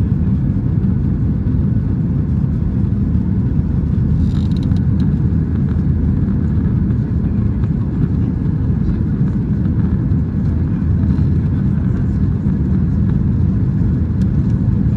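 Cabin noise of a Boeing 737-800 climbing after takeoff, heard from a window seat over the wing: the steady low roar of its CFM56-7B turbofan engines and the rushing airflow.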